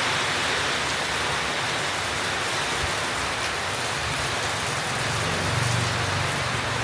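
Steady rain falling, an even hiss of many drops. A low rumble swells briefly about five seconds in.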